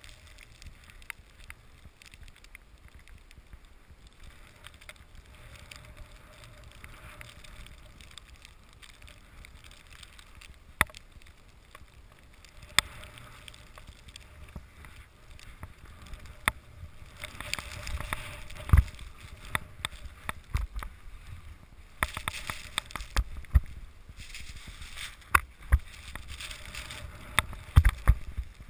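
Skis sliding through powder snow: a steady rushing hiss with a low rumble and scattered sharp knocks and clicks. The rushing grows louder and busier from a little past halfway.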